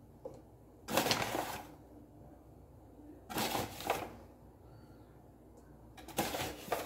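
A spoon scooping wheat flour out of a paper flour bag into a measuring cup: three short rustling scrapes of paper and flour, about two and a half seconds apart.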